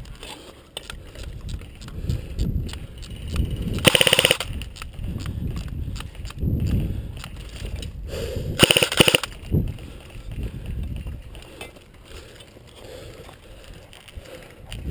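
Airsoft guns firing in rapid bursts, two louder bursts about four and nine seconds in, with scattered single shots over low rumbling noise.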